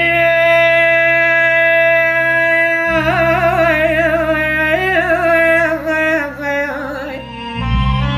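A singer of an Iraqi lament holds one long note for about three seconds, then sings a wavering, ornamented melodic run, over a steady low instrumental backing that cuts out briefly about three seconds in and again near the end.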